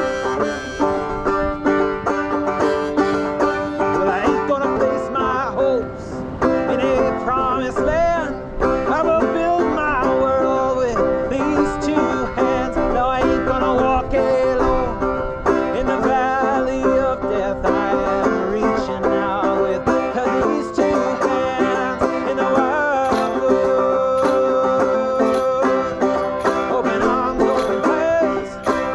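Banjo picked steadily in an instrumental passage of a folk song.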